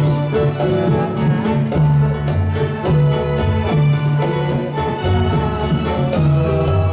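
Dolalak dance accompaniment music: an electronic organ-style keyboard plays sustained melody notes over a steady percussion beat.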